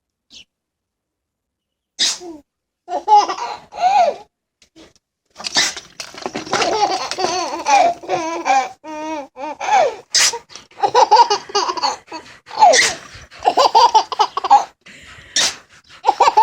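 A piglet sneezing in short sharp bursts, about five times, each met by a small child's fits of laughter.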